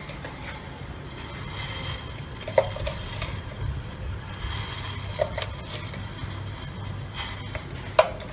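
A spoon clinking sharply against a glass jar and a steel pot a few times as tea powder is spooned into the water, over the steady low rush of a gas burner heating the pot.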